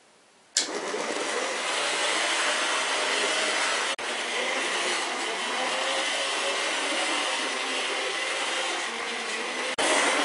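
Rivarossi HO-scale model 2-8-4 steam locomotive running on track: a steady mechanical whirring from its electric motor and gear drive. It starts abruptly about half a second in and breaks off for an instant about four seconds in and again near the end.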